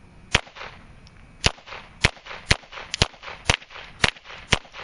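Ruger Mark I .22 Long Rifle semi-automatic pistol firing eight single shots, each a sharp crack with a short echo, the first about a third of a second in and the rest coming roughly two a second. The pistol fires shot after shot without a malfunction.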